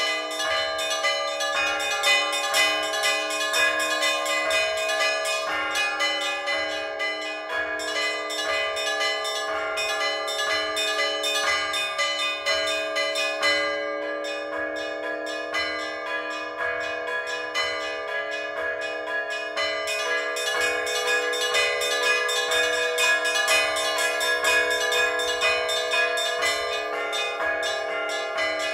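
Orthodox church bells rung by hand in a bell tower: several bells of different pitches struck in a fast, continuous rhythmic peal. The small high bells drop out for a moment about halfway through.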